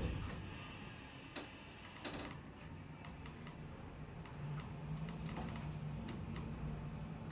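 A KONE MonoSpace machine-room-less lift car travelling: a low steady hum from its gearless drive comes up a couple of seconds in. There are soft clicks about one and two seconds in, and faint light ticking.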